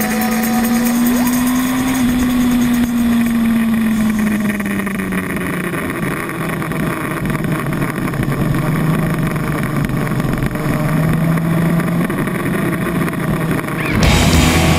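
Yamaha R1 inline-four sportbike engine running at speed on track: its note climbs a little, falls away as the throttle eases, then holds steady and lower. Music comes in near the end.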